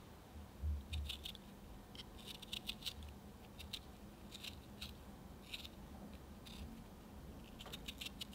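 Small paring knife shaving the surface of a firm fresh peach ball, making faint, crisp little cutting clicks in irregular clusters, with a soft low bump about a second in.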